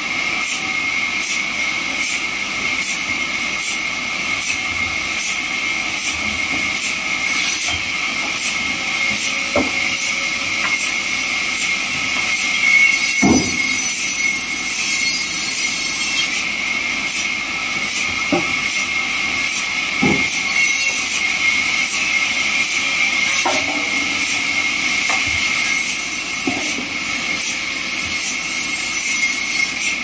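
Vertical band sawmill running and cutting through a log, a steady high whine with hiss from the blade in the wood and a light tick about twice a second. Several dull knocks stand out, the loudest about 13 seconds in.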